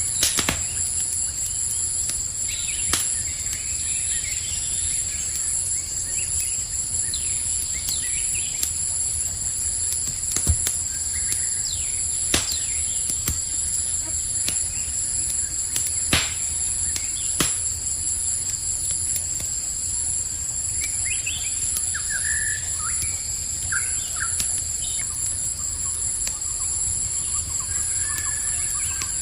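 A campfire crackling with sharp pops every few seconds, over a steady, high chorus of crickets. A few short bird chirps come in past the middle.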